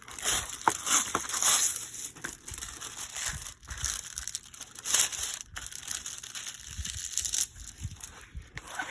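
Plastic packaging and a rolled diamond-painting canvas being handled and unrolled, crinkling irregularly. The crinkling thins out near the end.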